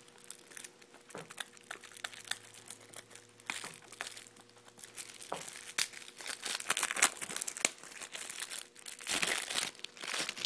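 Plastic wrapping being torn and crinkled as a new deck of playing cards is unwrapped: an irregular run of crackles, busiest in the middle and again shortly before the end.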